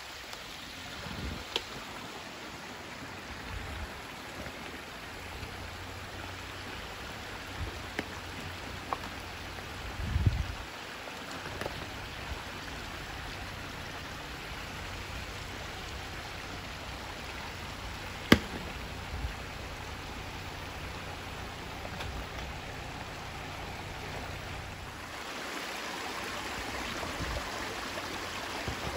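Steady rush of a small creek running beside the trail. The Jeep Gladiator's engine hums faintly underneath as it crawls. A dull thump is heard partway through and a single sharp click later.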